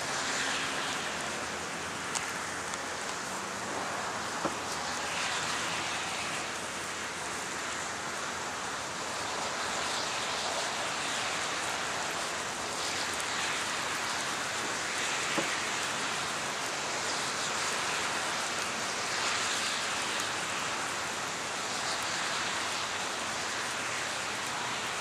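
Steady rush of rain in a severe thunderstorm, swelling and easing every few seconds, with a few sharp isolated ticks.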